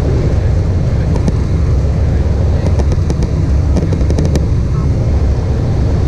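Cabin noise of an Embraer E190 taxiing, heard beside the wing: a steady low rumble from its GE CF34-10E turbofans at taxi power and the airframe rolling over the taxiway. A few faint clicks come near the middle.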